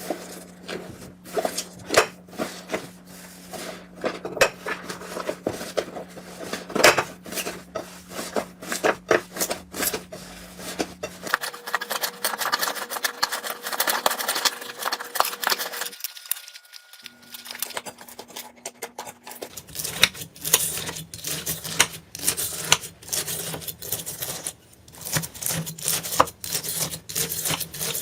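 Slime being squeezed and worked by hand, a dense run of small wet clicks and crackling pops that changes abruptly a few times as one clip gives way to the next.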